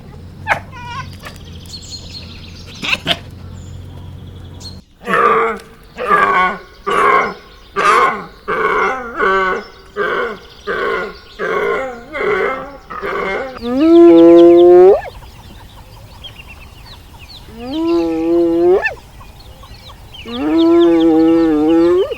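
Animal calls: a run of about nine short calls, roughly one a second, then three longer calls that each rise in pitch before holding.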